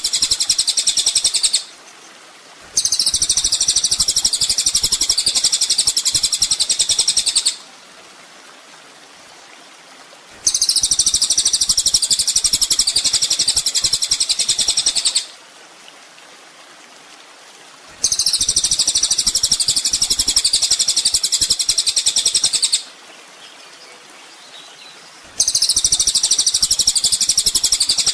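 Kolibri ninja (sunbird) song: a fast, high-pitched twittering trill in phrases of about five seconds, the same phrase repeating four times with short pauses between, as a looped masteran recording for training cage songbirds.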